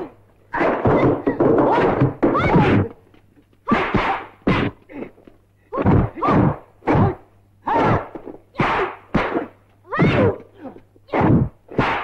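Kung fu film fight-scene soundtrack: a rapid run of punch and kick impact effects, about one a second, mixed with the fighters' shouts.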